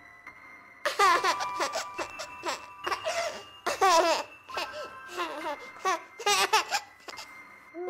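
A baby giggling and laughing in short repeated bursts, starting about a second in, over background music with held notes.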